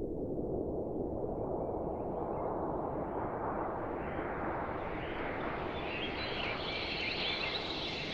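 A rushing noise with no clear tone that swells and grows steadily brighter over several seconds.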